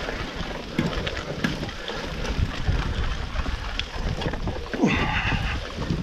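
Mountain bike rattling over a rough, wet trail: tyre rumble with frequent knocks and clicks, and wind on the microphone. About five seconds in there is a brief squeal.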